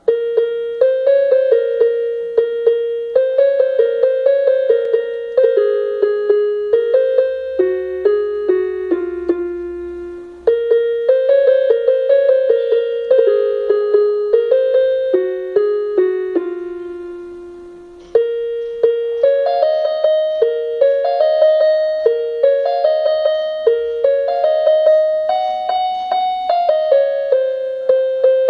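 Electronic keyboard in a piano voice playing a simple melody one note at a time. Two long held notes fade away, about ten seconds in and again around seventeen seconds in, before the tune picks up again.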